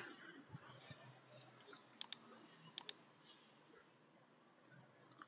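Computer mouse clicking against near-silent room tone: two pairs of quick clicks, about two seconds in and just before three seconds, and a single faint click near the end.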